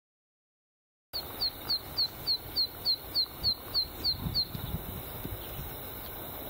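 Zitting cisticola singing its perched song: a run of about eleven short, high, sharp notes, each dropping in pitch, evenly spaced about three a second. The song starts about a second in and stops after about three seconds.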